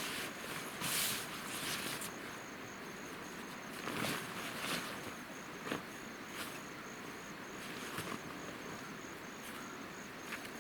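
An insect chirping in a high, steady pulse of about three chirps a second over a constant rushing hiss of stream water. A few brief rustling or crunching steps break in now and then.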